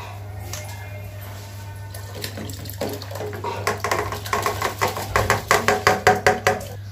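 Washed rice and its water being tipped and shaken from a steel bowl into a pot of hot water for boiling. The splashing and clattering come in quick pulses, about five a second, starting about three seconds in and loudest near the end.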